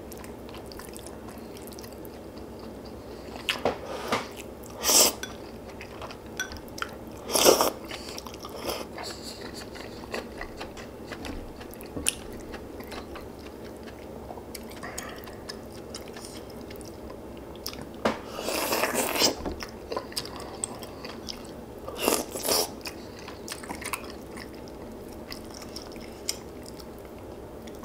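Close-miked eating sounds: a person chewing and biting with small wet clicks, broken by several louder crunchy bursts, the longest lasting about a second and a half a little past the middle.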